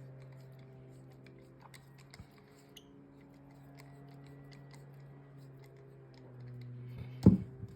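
Faint small metallic clicks and ticks of a driver turning the pivot screw of a titanium balisong, over a steady low hum. Near the end there is a single loud sharp clack.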